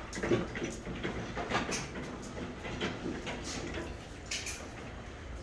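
Scattered light knocks and clanks of metal engine parts being handled and set into a parts-washing cabinet, over a low steady hum.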